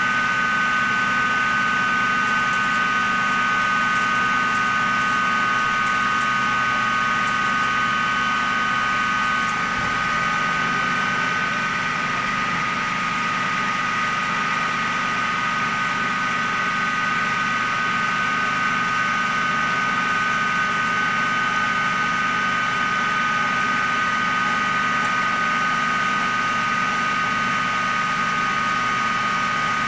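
Gildemeister N.E.F. 480 CNC lathe turning a metal part under coolant, running with a steady whine of several high tones over a low hum. The whine shifts slightly about ten seconds in.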